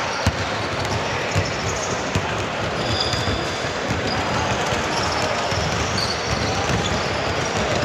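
Basketball game sounds: a ball bouncing on the court in scattered dull thuds, with a few brief high squeaks over a steady background din.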